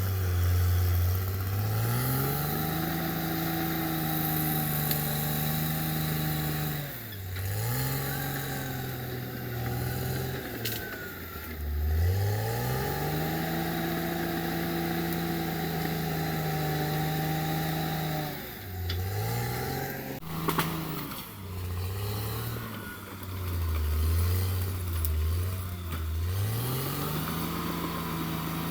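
Caterpillar D6R XL bulldozer's diesel engine working hard. It revs up and holds high revs, drops back briefly about seven, twelve and nineteen seconds in, and each time climbs again. After a sharp metallic clank about twenty seconds in, it wavers at low revs for a few seconds before revving up once more near the end.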